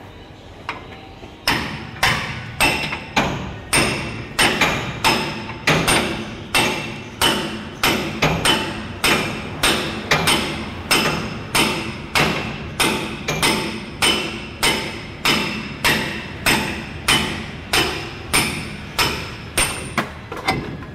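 Hand hammer striking a steel drift held against a heavy truck's drum brake shoe assembly: steady, evenly paced metal-on-metal blows, about one every 0.6 s, each with a short ring, starting about a second and a half in after some quieter handling.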